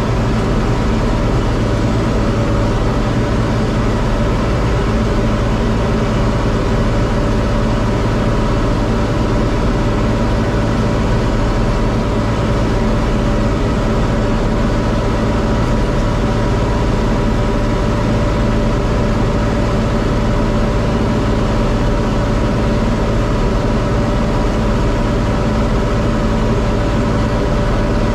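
John Deere 4250 tractor's six-cylinder diesel running at a steady speed while the Kuhn VB 3155 round baler works hay behind it, a constant engine-and-machinery drone with a few steady whining tones.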